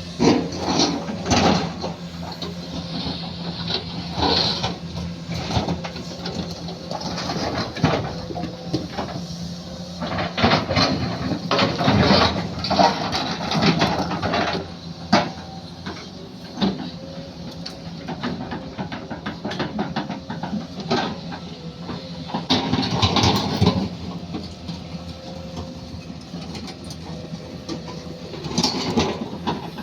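Excavator working: its engine runs steadily under irregular loud clanks, knocks and scraping as the machine digs and moves material.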